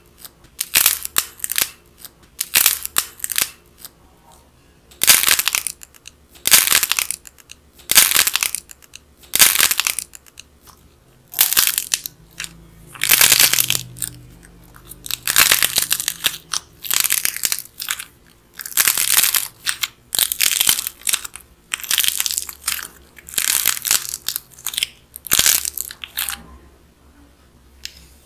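Dried clay crust of a bread-shaped clay twist cracking and crumbling under the fingers as it is squeezed and torn open, in short crisp crackling bursts about one a second.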